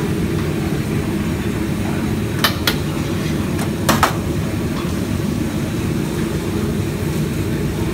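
Gas wok burners running with a steady low rumble, broken by two pairs of sharp metal clanks of woks and utensils about two and a half and four seconds in.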